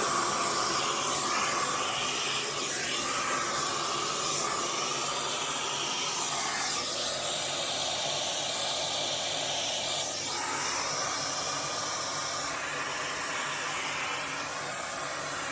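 Dyson Big Ball Multi Floor 2 canister vacuum cleaner running with its crevice tool on a keyboard, a steady rushing of suction air. The airflow's tone shifts several times, about 2, 7 and 10 seconds in.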